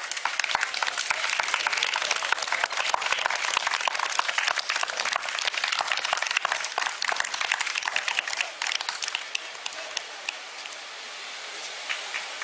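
Crowd clapping and applauding, a dense patter of many hands that thins out near the end.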